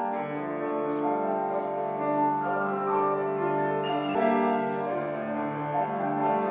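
Grand piano played solo: ringing, overlapping chords that change every second or two.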